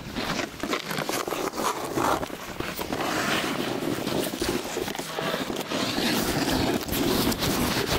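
Snowboard sliding and scraping over snow, a continuous rough noise with many small knocks, mixed with wind and handling noise on the camera microphone.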